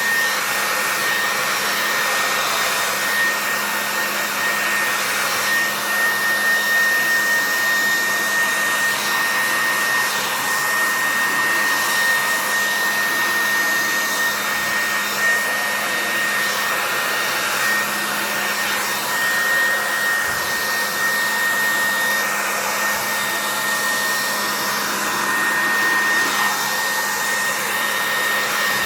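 Handheld hair dryer running steadily, blowing air, with a constant high whine from its motor and fan.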